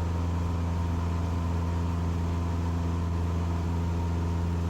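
Cessna 150's four-cylinder Continental O-200 engine and propeller running steadily in flight, a constant deep drone with no change in pitch.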